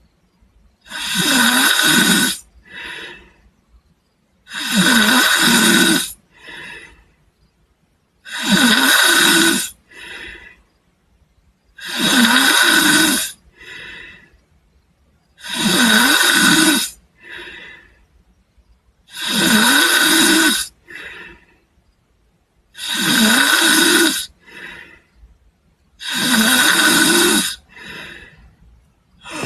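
A person snoring steadily in sleep: eight loud snores about every three and a half seconds, each a little over a second long and followed by a shorter, fainter sound.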